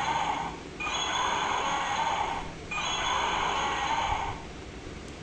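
Electronic roar from a Dino Troop Extreme velociraptor toy's sound module, played through its small speaker. It sounds three times, each roar just under two seconds long with a short gap between.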